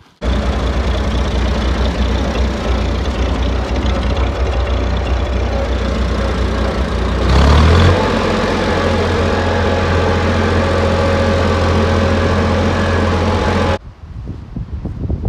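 David Brown 4600 tractor engine running steadily. About halfway it briefly gets louder, then carries on at a slightly changed engine note, and it cuts off abruptly near the end.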